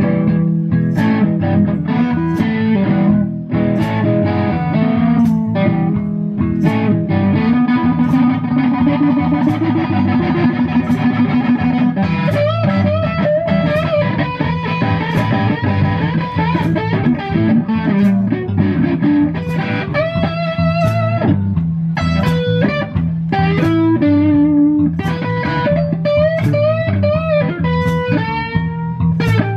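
Electric blues guitar on a Stratocaster-style electric guitar, playing lead lines with bent and wavering notes over electric bass and a steady drum beat.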